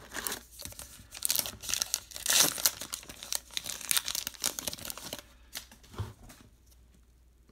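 Crinkling and tearing of a 2019 Topps Heritage Minor League baseball card pack's plastic wrapper as it is ripped open by hand, loudest in the middle, then a few light clicks as it dies away over the last two seconds.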